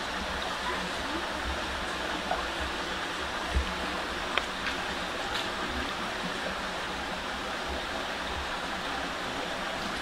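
Steady rushing hiss of outdoor forest background noise, with a few faint knocks and a brief high chirp around four seconds in.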